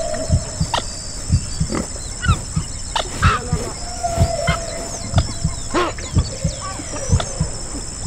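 A recorded heartbeat thumping in pairs about once a second, layered with humpback whale calls that glide slowly in pitch and scattered higher animal squeaks.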